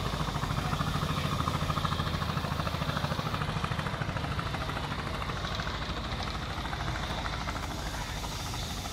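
An engine running steadily with a fast, even pulsing beat, easing off slightly toward the end.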